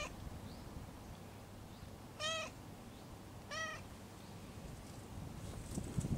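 Stray cat giving short, quiet meows in response to being patted on the lower back: three brief calls, one right at the start and two more a little over a second apart, starting about two seconds in.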